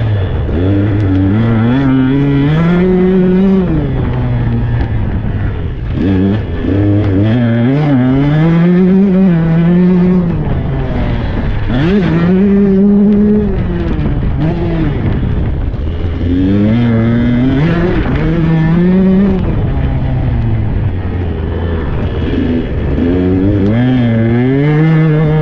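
Tuned Husqvarna 125 cc two-stroke dirt bike engine under way, its pitch climbing as the throttle is opened, then dropping off, about five times over as the rider accelerates, shifts and backs off.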